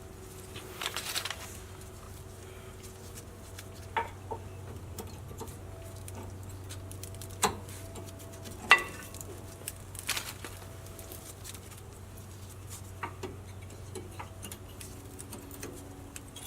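Scattered light metallic clicks and clinks of brake caliper hardware and brake pads being handled and removed, with a few sharper knocks, over a steady low hum.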